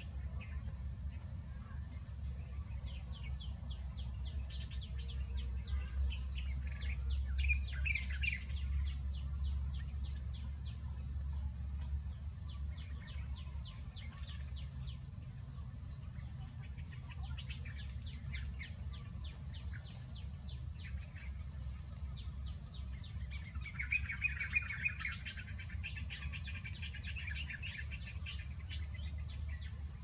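Birds calling in several runs of quick, dry chirps, with a denser burst of chatter about three-quarters of the way through. Beneath them is a steady low rumble.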